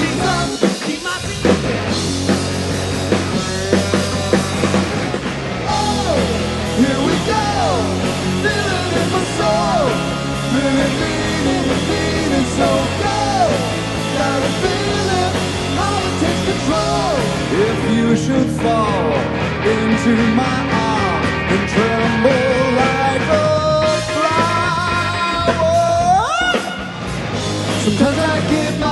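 Rock band playing, with a man singing over electric guitar, bass guitar and drums.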